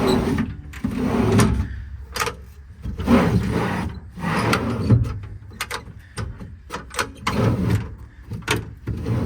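Service-body drawers being slid open and shut several times, each a short scraping rush with knocks. They slide a little tight and want lubrication.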